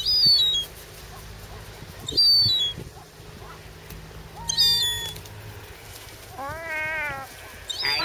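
Herring gulls giving short, high mewing calls that drop in pitch, three of them about two seconds apart, with a longer, lower call near the end, as they compete for food held out to them.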